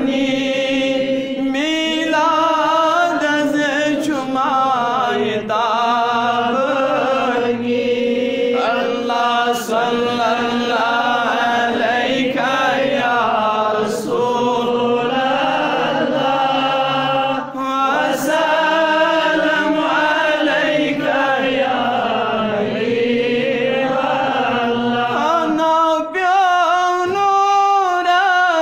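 A man singing a Kashmiri naat solo and unaccompanied, in long chanted lines that slide and hold on each note.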